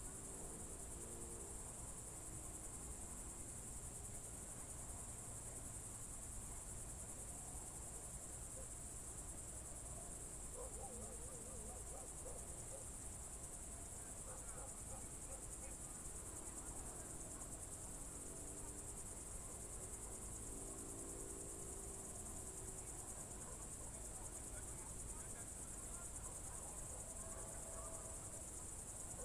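Crickets chirring in one continuous high-pitched trill on an evening in June, with faint, low distant sounds now and then underneath.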